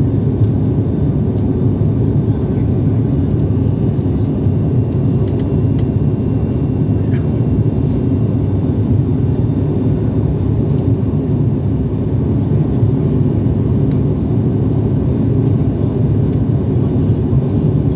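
Steady, deep cabin noise of an airliner in flight while climbing, a constant even rumble of engines and airflow.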